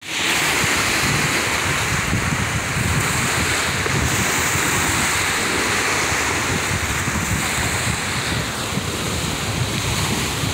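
Wind buffeting the microphone in a steady, gusty rush over choppy open water, with small waves lapping.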